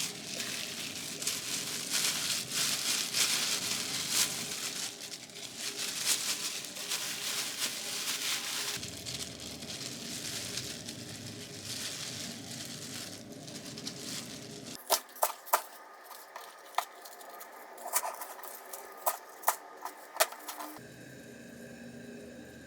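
Crackling, crinkling handling noise for about fifteen seconds, then a quieter stretch with about a dozen sharp clicks or taps, then near the end only faint background.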